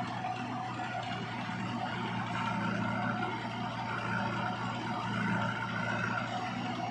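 Mahindra Arjun 555 farm tractor's diesel engine running at a steady, low speed, getting slightly louder from about two and a half seconds in.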